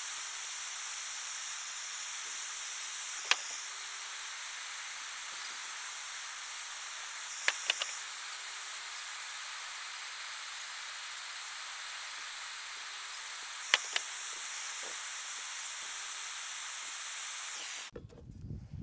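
Handheld gas torch burning with a steady hiss, heating the plastic injected retainers of a drive shaft universal joint to soften them. A few light clicks sound along the way, and the hiss cuts off suddenly near the end.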